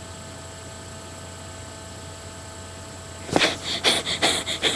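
Steady electrical hum and hiss from a webcam recording. About three and a half seconds in, a run of short breathy, noisy bursts close to the microphone begins, about three a second.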